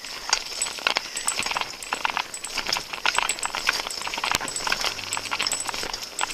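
Footsteps of a person walking on a street: an irregular run of short taps and scuffs, several a second.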